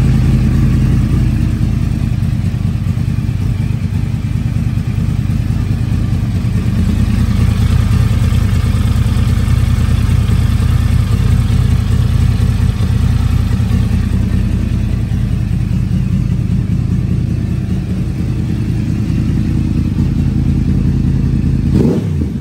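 Yamaha R1 sport bike's crossplane inline-four engine idling steadily on fresh oil, just after an oil and filter change.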